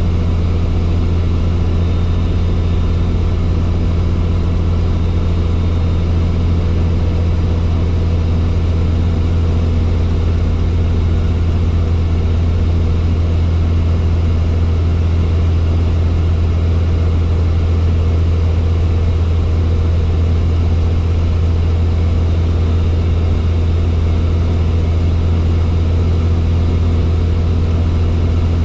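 Helicopter engine and rotors heard from inside the cabin: a loud, deep, steady drone that holds level throughout.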